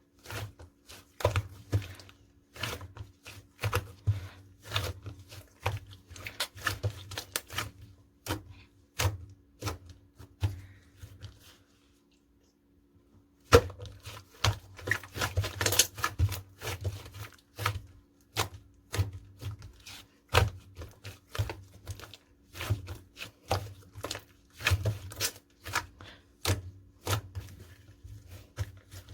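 Clay slime being pressed, poked and stretched by hand, making a quick, uneven run of sticky clicks and pops. It stops for about two seconds near the middle.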